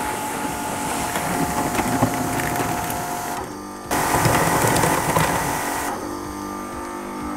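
Kärcher electric pressure washer running, its pump giving a steady whine while the high-pressure jet hisses against a plastic storage box. The sound drops out briefly about three and a half seconds in, then returns louder.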